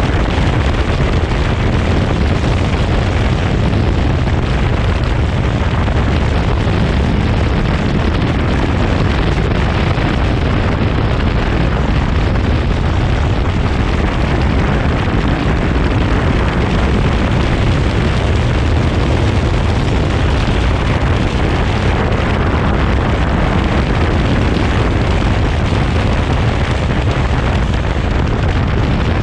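Motorcycle cruising at road speed: a steady, loud low rumble of wind on the mounted camera's microphone, with the engine and tyre noise beneath it.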